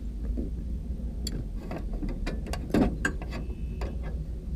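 Irregular ticks and clicks, with one louder knock a little past halfway, over a steady low rumble.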